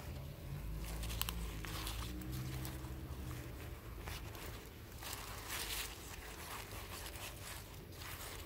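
Rustling and scraping of gloved hands pressing potting soil around a strawberry plant in a strawberry pot, with cloth brushing against the recording phone, in short irregular scuffs. A low drone sits underneath for the first few seconds.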